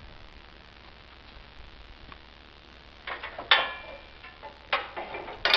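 Metal sprayer boom parts knocking and clinking together as they are handled and fitted. The clanks ring briefly, several in the last half, after a few seconds of little sound.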